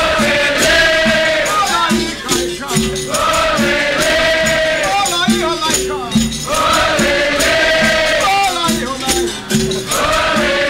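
Capoeira roda music: berimbaus with caxixi shakers, pandeiros and an atabaque drum keep a steady rhythm while a group sings a call-and-response chorus in long held phrases.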